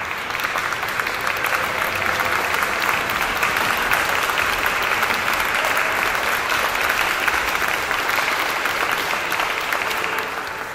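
Audience applauding: dense, even clapping that swells over the first couple of seconds and fades out near the end.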